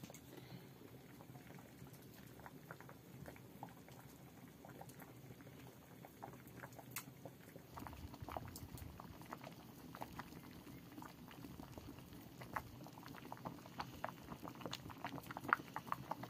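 Rice boiling in an aluminium pot on a wood fire: faint bubbling with small scattered pops, which get busier about halfway through.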